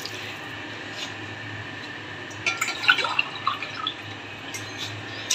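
Water dripping and light clinks in an aluminium pressure cooker with mutton pieces, between cupfuls of water being poured in: a few scattered drips and clicks over a low steady hum.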